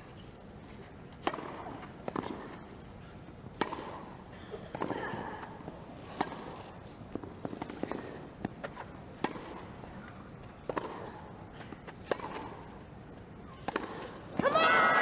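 Tennis rally on a grass court: racket strings striking the ball roughly once a second, with players grunting on some shots. Near the end the crowd breaks into loud cheering and applause as the point ends.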